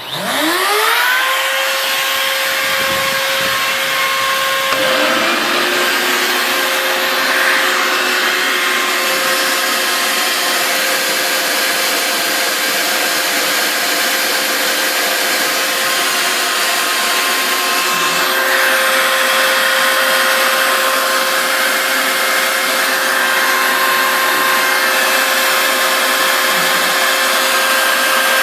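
A router on a home-built CNC mill switched on, its motor whining up to speed in about a second and a half and then running at a steady high pitch, together with the rushing of a shop vac used for dust removal. A second steady tone joins about five seconds in, and the loud machine noise holds to the end.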